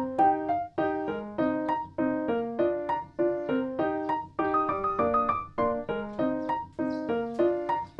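Background music: a light piano tune, its notes struck and fading in a steady, regular beat.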